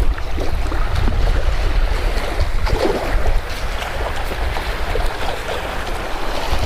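Wind buffeting the microphone as an uneven low rumble over a steady wash of water noise.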